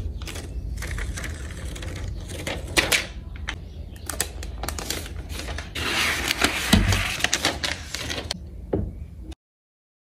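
Protective wrap being peeled and pulled off the back of an iPad, a dense crinkling and crackling with a dull handling bump about seven seconds in. The sound cuts to silence shortly before the end.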